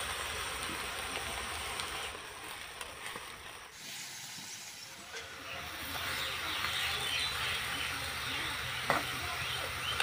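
Bengal arum (kharkol) leaves frying in mustard oil in a metal pan, a steady sizzle that dips briefly near the middle and comes back fuller. A single clink of the metal spatula against the pan near the end.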